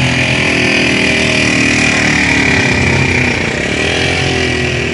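A motor vehicle engine running loudly and steadily close by, its pitch dipping and rising again about four seconds in.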